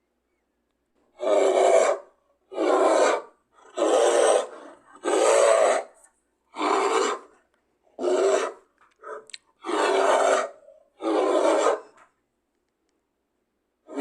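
A series of about eight harsh, rasping roar-like calls, roughly one a second, each under a second long: a large carnivore's sawing call, given as the voice of a creodont.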